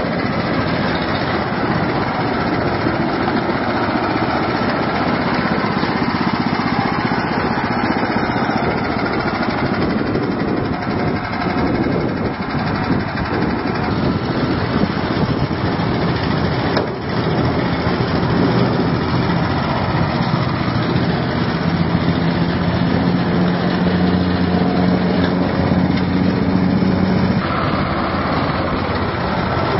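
Small single-cylinder petrol engine of an amphibious rice thresher running steadily under load as the cage-wheeled machine is driven through a flooded paddy.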